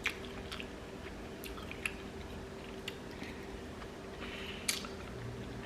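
Close-up mouth sounds of a person chewing spicy ramen noodles: wet, irregular smacks and clicks over a faint steady hum.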